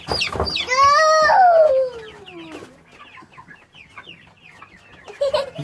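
Chickens squawking and clucking as they are handled and thrown. A loud drawn-out squawk starts about a second in and falls in pitch, followed by quieter, quick clucks.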